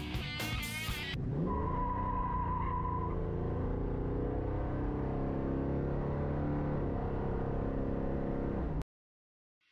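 Car engine accelerating hard from a standstill, its pitch rising and then holding steady, with a brief tyre squeal as it pulls away. It starts about a second in and cuts off suddenly near the end.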